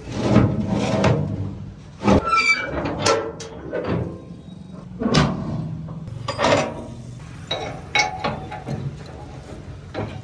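Irregular metallic clanks and knocks from steel latches and fittings on a tractor trolley being handled, some ringing briefly.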